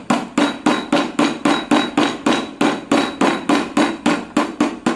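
Rapid, even metal taps, about four or five a second, knocking a magnet segment out of an e-rickshaw motor's rotor.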